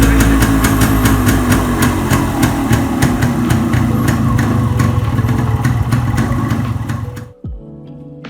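Single-cylinder two-stroke engine of a 1997 Yamaha RXG motorcycle idling loudly with a steady pulse, running on the freshly rebuilt carburettor. The engine sound cuts off suddenly about seven seconds in, and soft background music follows.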